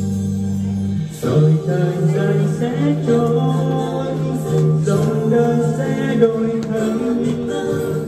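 A man singing into a microphone over instrumental backing, played through a small amplifier speaker; a held backing chord sounds alone until the voice comes in about a second in.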